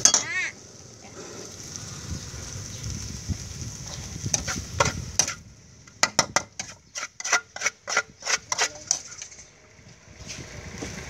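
Metal spatula scraping and clanking against a steel wok as fried noodles are stir-fried, with a fast run of strikes in the middle and a faint background sizzle. A brief wavering tone sounds right at the start.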